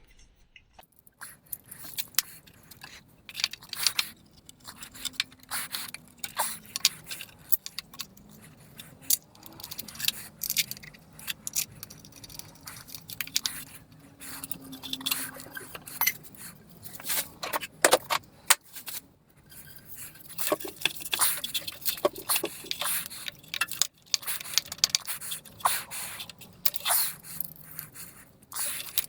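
Metal tools and engine parts clinking and scraping in irregular taps, clicks and scrapes as a part is fitted and bolted onto the engine.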